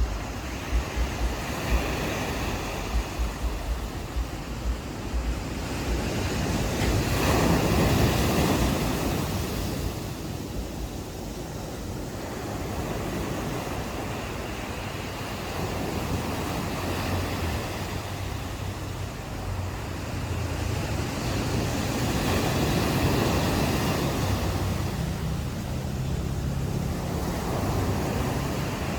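Small ocean waves washing onto a beach, swelling and easing twice, with wind buffeting the microphone in the first seconds. A low steady hum joins in the second half.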